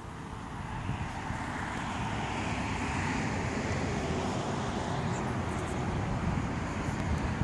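Road traffic noise, growing louder over the first two seconds and then holding steady.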